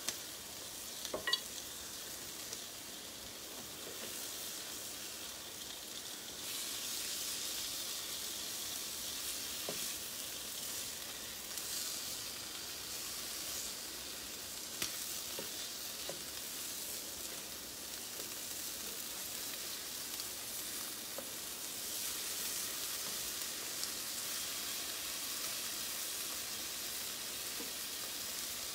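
Bacon strips frying on a griddle, sizzling steadily, growing louder about six seconds in, with a few light clicks.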